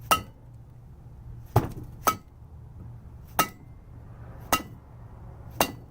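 Rubber mallet tapping the valve spring retainers on a Honda K24 cylinder head, six sharp taps about a second apart, each with a short metallic ring. The taps are meant to loosen the valve keepers before the springs are compressed.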